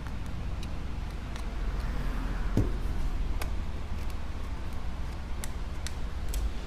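Scattered light clicks and scraping as small leftover pieces of broken glass are cleared off an iPad Air's frame, over a steady low hum.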